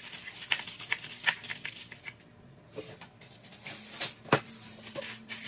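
Aluminium foil crinkling and crackling in irregular snaps as it is handled and pressed down to cover baking dishes.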